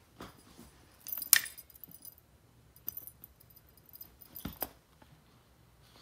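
Light metallic jingling in about four short bursts, the loudest about a second in, as a tabby kitten bats and pounces at a dangled cord toy; a thump comes with the jingle near the end.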